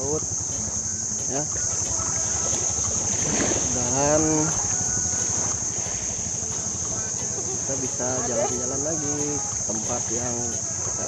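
Steady high-pitched drone of insects, unbroken throughout, with short bits of voices about four seconds in and again around eight to nine seconds in.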